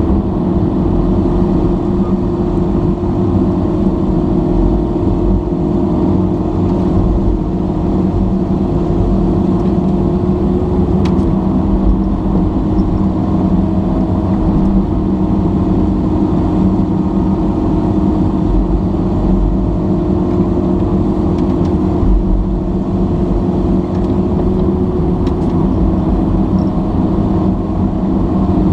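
Diesel engine of a mini excavator running steadily at working speed, heard from inside the operator's cab, with a couple of faint clicks.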